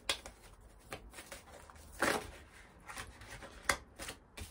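A deck of large cards shuffled by hand: soft rustling and slapping of the cards against each other, with a louder rustle about two seconds in and a couple of sharp card snaps near the end.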